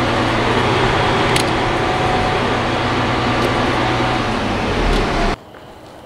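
Lexion combine's engine running with the cab blower fan going, heard from inside the cab, as a steady hum. It cuts off abruptly about five seconds in.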